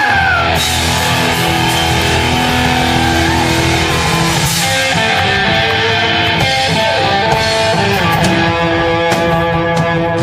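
A live rock band playing loud, with guitar to the fore; notes are bent in pitch around the start, and sharp hits come more often in the second half.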